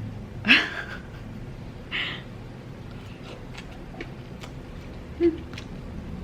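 Close-miked eating sounds: chewing with small mouth clicks throughout, and a couple of short breaths or sniffs about half a second and two seconds in.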